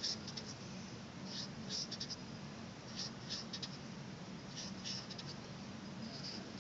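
Felt-tip marker drawn across paper: short scratchy strokes, some single and some in quick groups of two or three, as small curved arrows are drawn. A faint steady low hum lies underneath.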